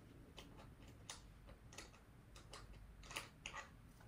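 Near silence broken by a handful of faint, short clicks, irregularly spaced, a couple of them a little stronger past the three-second mark.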